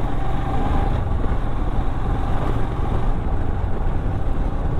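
Motorcycle on the move: its engine running under a steady rush of road noise.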